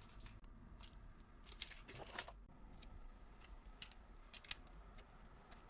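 Faint, scattered handling noises of small packaged items: light rustles and clicks, the sharpest tick about four and a half seconds in, over low room tone.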